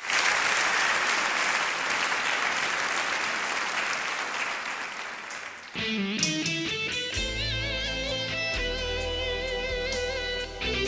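Audience applause that dies down, then about halfway through a Korg arranger keyboard starts a 16-beat accompaniment style: drums, a bass line and an electric-guitar-like lead with vibrato.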